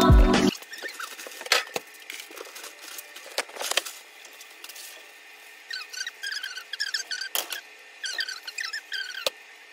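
Background music cuts off about half a second in. Then a fork clicks and knocks against a waffle iron as cooked waffles are lifted out, and from about halfway on there are short runs of high squeaky chirps.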